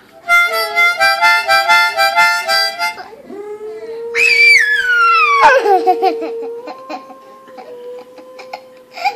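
Harmonica played in quick alternating chords for about three seconds, then a dog howling along: a high howl slides down in pitch over a long steady note that steps up slightly near the end.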